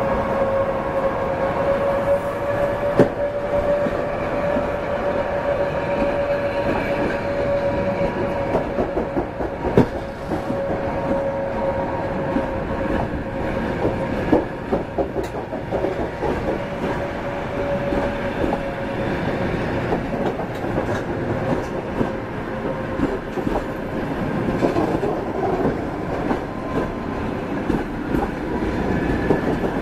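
Passenger carriages rolling past at low speed as the train pulls out of the station, wheels clicking over the rail joints. A steady high whine runs through the first part and fades a little past the middle, and there are a few sharp knocks.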